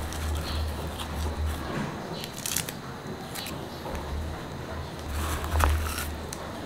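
Plastic wrap crinkling and a cardboard box rustling as gloved hands unpack a small electric water dispenser, in short irregular crackles. The loudest crackles come about two and a half seconds in and again about five and a half seconds in.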